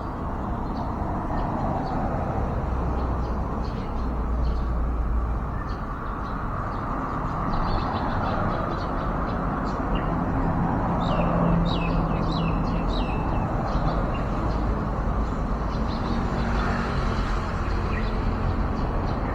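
Steady low rumble of distant road traffic, with short high bird chirps scattered over it and a quick run of about six falling chirps a little past the middle.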